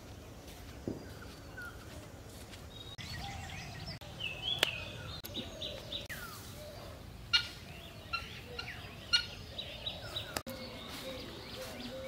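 Birds calling outdoors: many short chirps and sliding whistled notes over a low steady background, with the loudest calls coming twice in the second half, and a few sharp clicks.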